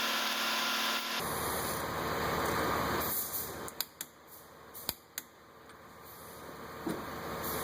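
Steady hissing noise for about the first second, then quieter handling of tools and parts with a few sharp metallic clicks in the middle.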